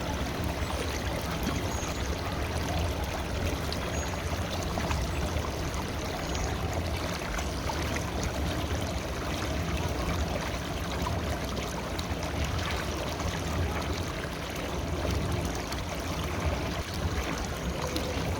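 A river flowing: a steady rush of running water.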